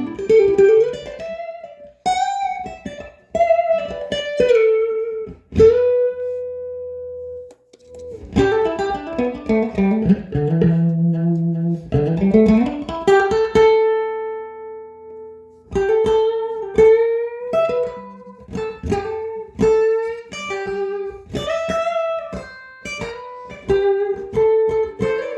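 Electric guitar fitted with Seymour Duncan Zephyr humbucker pickups, playing a lead line of quick picked single notes with bends and slides, broken by a few long held notes that ring out.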